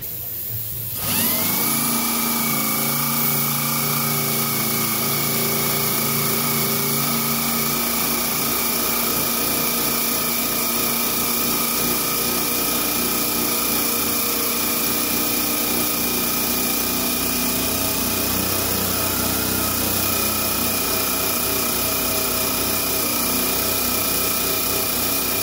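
Electric drill spinning a disc pressed against a sheet-metal panel, starting up about a second in and then running steadily with a high whine. The disc is being run over a dented spot to shrink the metal.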